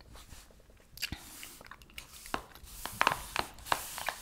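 Close-miked chewing gum: wet smacks and sharp clicks of the gum, irregular, loudest around three seconds in, with a faint brushing of a hand over the paper page.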